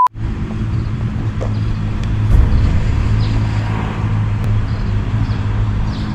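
Steady low rumble of road traffic, with a constant low hum.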